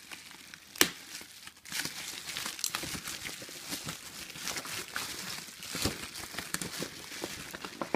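Plastic bubble wrap crinkling and rustling as it is pulled off a box by hand. There is a single sharp crack about a second in, then steady crinkling from about a second and a half on.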